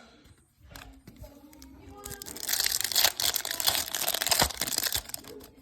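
Foil wrapper of a 1999 Topps Chrome baseball card pack being torn open and crinkled, starting about two seconds in.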